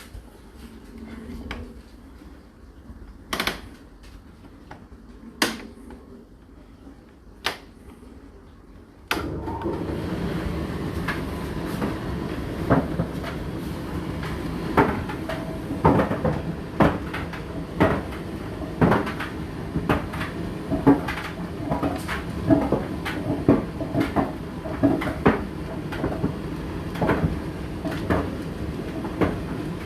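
Indesit IDC8T3 condenser dryer starting up about nine seconds in, after a few isolated clicks, then running steadily as its drum turns, with laundry knocking roughly once a second.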